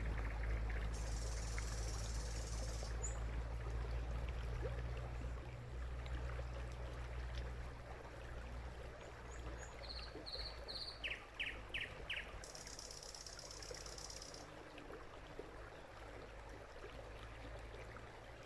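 Outdoor ambience with birds calling over a steady low rumble. A high buzzy trill sounds twice, and a short run of quick chirps comes in the middle.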